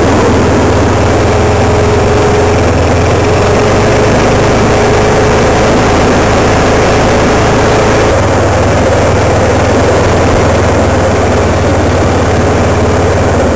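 Vehicle engine running steadily while driving along, a loud constant low hum with steady noise over it.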